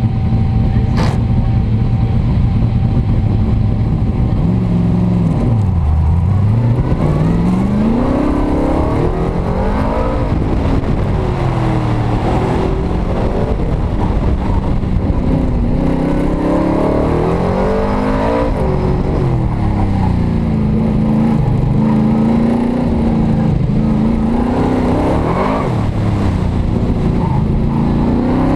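Shelby Cobra's V8 engine heard from the open cockpit, running steadily for the first few seconds, then revving up and falling back again and again as the car accelerates, lifts off and brakes through a tight cone course.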